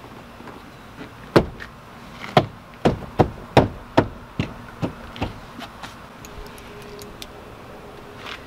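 A 2019 Ford Transit's plastic door trim panel is being pressed and knocked onto the door, its push-in clips snapping home. It makes a run of about ten sharp knocks between one and five and a half seconds in, the first the loudest.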